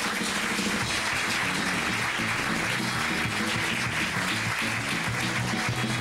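Audience applause over music with a moving bass line, at the end of a sketch.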